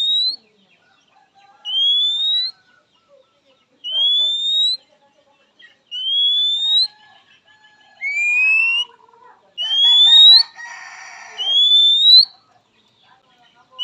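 Oriental magpie-robin (kacer) giving a loud, rising whistle, seven times at about two-second intervals, the fifth pitched a little lower. This is the kacer's call to a rival. About two-thirds through, a rougher scratchy chatter runs under two of the whistles.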